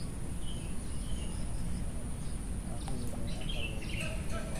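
Small birds chirping in short, scattered calls over a steady low rumble of outdoor background noise.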